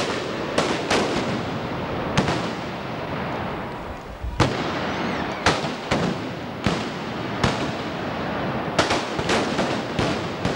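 Festival arquebuses firing blank gunpowder charges in a mock battle: about a dozen sharp shots at uneven intervals, some close together, over a steady background of noise.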